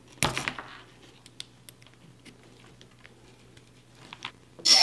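Small clicks and wire rustle as the bullet connectors between an ESC and a brushless motor are pulled apart and swapped. Near the end, 2212 1400kv brushless motors with propellers spin up and back down with a whine that rises and falls; they now run in the reversed direction.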